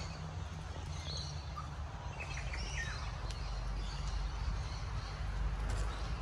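Outdoor ambience: a steady low rumble with a few birds chirping briefly, mostly between one and three seconds in.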